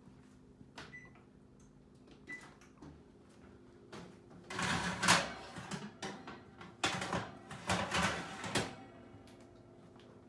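Clatter and knocks of a baking pan and oven being handled as the pan goes into the oven: a few light clicks, then two louder bouts of clanking about halfway through and again near the end.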